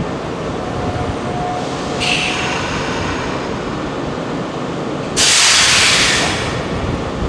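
Nankai 3000 series electric train standing at the platform, its equipment running steadily. Compressed air hisses out of the train's air system, briefly about two seconds in and then louder for over a second about five seconds in.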